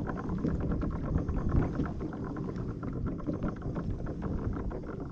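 Spinning reel being cranked steadily on a lure retrieve, a fast fine ticking, over a low rumble of wind and water around the kayak.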